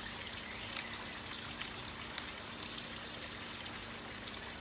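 Steady trickle of running water with a faint low hum, and a few light clicks as small plastic tubs are handled.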